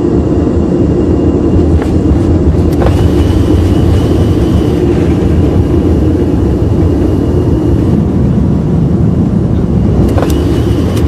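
Airliner on its takeoff roll at takeoff thrust, heard from inside the cockpit: a loud, steady rumble of engines and wheels on the runway, with a few faint clicks.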